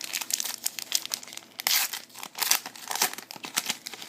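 Foil wrapper of a trading card pack being torn open and crinkled by hand, a run of irregular crackles and rustles.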